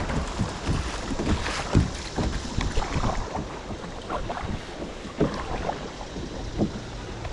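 Kayak going through shallow river rapids: rushing water with scattered splashes and knocks, and wind on the microphone.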